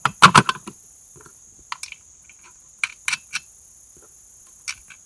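Plastic chain cover of a NEO-TEC NH 841 chainsaw being handled and fitted back onto the saw: a quick cluster of loud clicks and knocks at the start, then scattered lighter clicks, over a steady high insect chirr.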